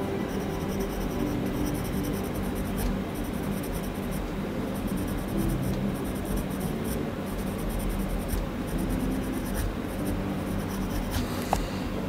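Graphite pencil scratching across drawing paper in repeated short strokes as the eye area of a portrait is sketched and shaded.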